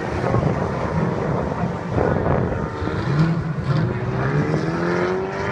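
Race car engines running in the distance as cars drive through a hairpin. One engine note rises steadily in the second half as a car accelerates out of the corner.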